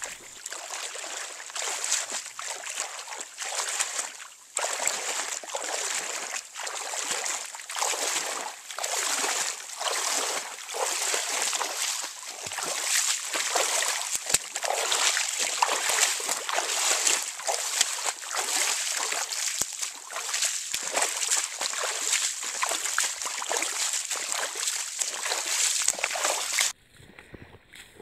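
Feet wading and splashing through shallow creek water, a steady run of sloshing steps while a canoe is walked up the channel on a line. It cuts off suddenly near the end.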